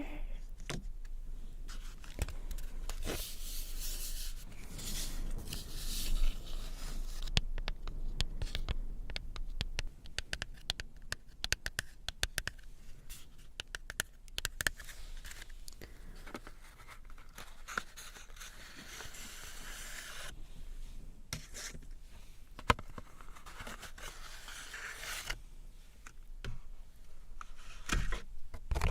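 Tapping and scratching on a paper card: hissing scratch strokes, a run of quick taps in the middle, and a few sharp single taps later on.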